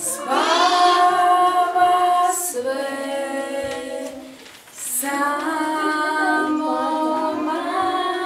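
A song sung by unaccompanied high voices, with long held notes and a short break about halfway through.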